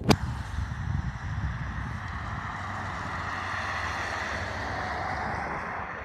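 A sharp click, then a road vehicle passing on the street: a steady rush of tyre noise over a low rumble that begins to fade near the end.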